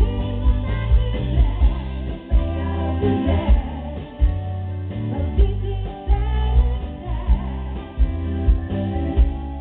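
Live band playing through a PA: a woman singing into a microphone over electric bass and a drum kit keeping a steady beat of about two hits a second.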